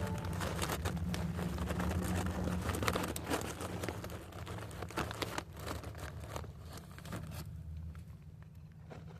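Crinkling and rustling of a chip bag being handled, many small irregular crackles, over a steady low hum that fades out near the end.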